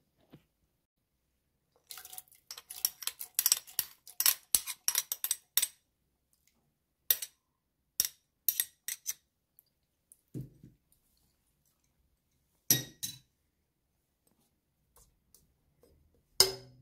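Kitchen utensils and containers clinking and tapping at a stainless steel pot as spices, split peas and dried limes go into a stew broth: a quick run of small clinks about two seconds in, then a few single knocks, the loudest near the end.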